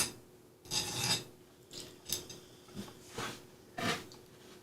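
Hand file rasping on a part in short, uneven back-and-forth strokes, the longest about a second in and the later ones shorter and fainter.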